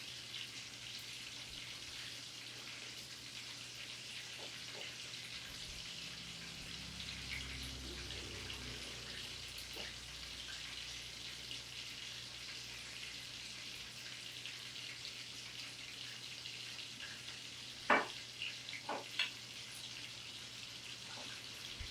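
Faint steady sizzling hiss, like food frying, with a few light knocks near the end.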